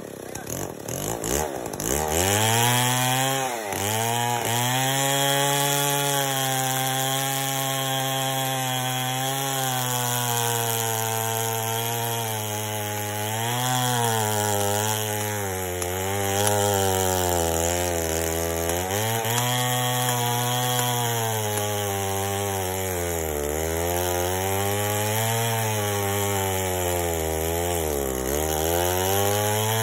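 Chainsaw cutting into a large tree, its engine pitch sagging under load and recovering in slow waves every few seconds. A few knocks in the first two seconds come before the saw runs up to cutting speed.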